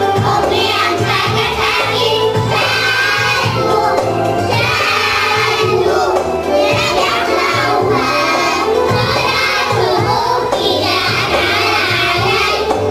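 A group of young children singing a song over a recorded backing track with a steady, repeating bass line.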